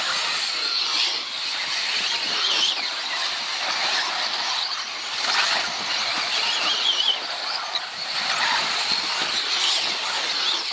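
Radio-controlled off-road buggies racing around a track. Their small motors whine in a pitch that rises and falls as they speed up and slow down, over a steady high hiss.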